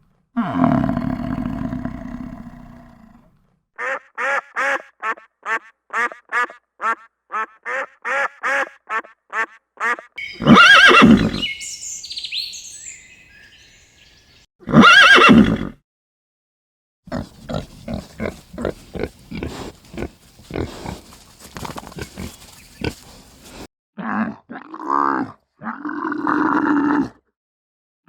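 A succession of different animal calls, one kind after another: a drawn-out low call, a quick run of short repeated calls, two loud short blasts, then more short and pitched calls.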